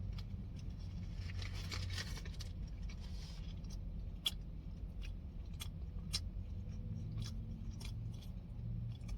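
A person chewing a mouthful of burger close to the microphone, with wet mouth clicks about twice a second. There is a short rustling noise in the first few seconds.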